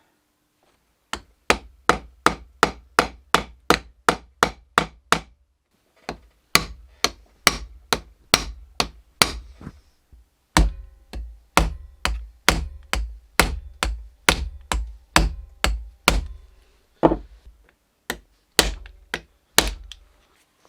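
Hammer blows, about three a second, in several runs broken by short pauses, ending in a few spaced single strikes, as parts of a steering rack are reassembled.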